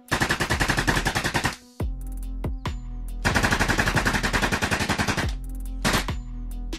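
Automatic gunfire sound effect: two long rapid bursts of about two seconds each, with a few single shots between and after them, over a steady low background drone.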